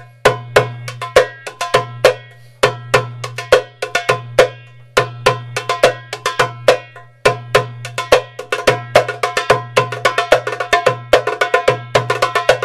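A darbuka (goblet drum) played solo in the Saidi rhythm: deep ringing doum bass strokes under sharp, crisp tek and ka strokes near the rim. The pattern grows busier with quick fill strokes in the second half.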